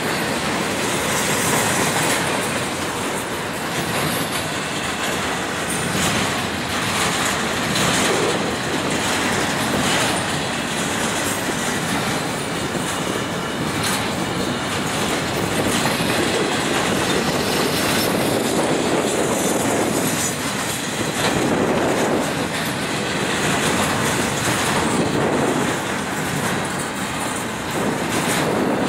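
Cars of a manifest freight train rolling past at steady speed, with a continuous rumble and wheels clacking over the rail joints.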